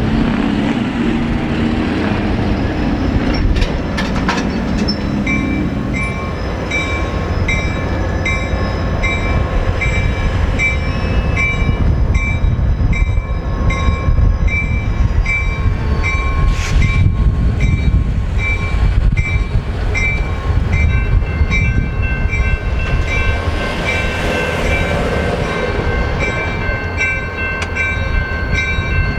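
Diesel locomotives rumbling steadily as the train runs by, with a bell ringing at a little under two strokes a second from about five seconds in.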